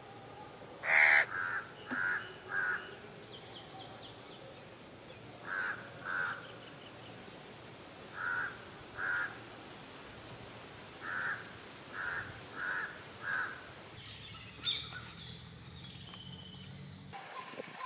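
Crows cawing repeatedly, in runs of two to four short calls a few seconds apart; the call about a second in is the loudest.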